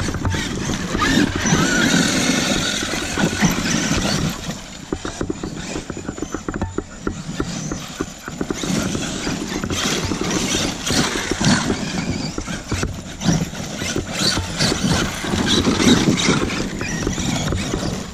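Battery-electric RC monster trucks (Traxxas E-Revo 2.0 and X-Maxx) driving and jumping over a pile of crushed stone: tyres scrabbling and gravel crunching and rattling in a dense run of clicks and knocks, with the electric motors whining up and down as they accelerate. It eases off for a few seconds midway, then picks up again.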